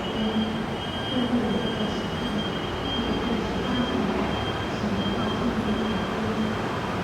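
A freight train hauled by an EMD G12 diesel-electric locomotive, running with a steady rumble and a thin, steady high whine over it.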